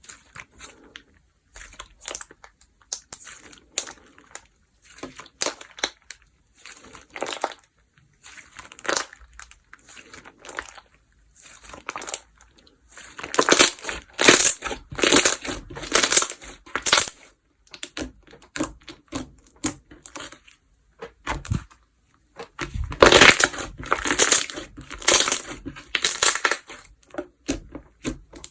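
Slime being squeezed and pressed by hand, giving runs of crunchy crackling clicks, sparse at first and densest about halfway through and again near the end.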